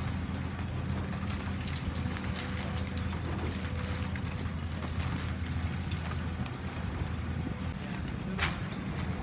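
Engine of heavy demolition machinery running steadily, with scattered knocks and a sharp crack near the end, and wind on the microphone.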